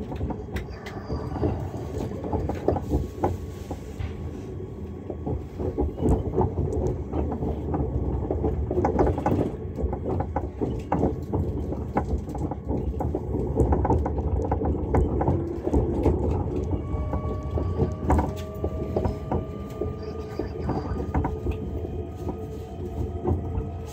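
Cabin noise inside a moving Öresundståg electric train: a steady rumble with many clicks and clacks of the wheels over rail joints and switches. From about two-thirds of the way through, a faint whine rises slowly in pitch as the train picks up speed.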